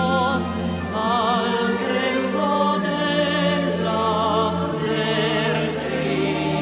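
A choir singing a slow hymn, the voices wavering with vibrato over long held low notes.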